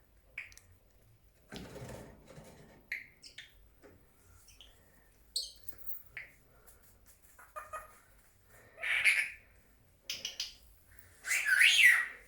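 A pet Senegal parrot giving a scattered series of short calls and squawks, some sliding in pitch. The loudest come about two thirds of the way through and again near the end.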